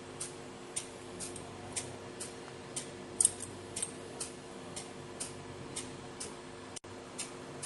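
Steady ticking at about two ticks a second, like a clock, over a faint steady hum, with one louder, sharp double click about three seconds in.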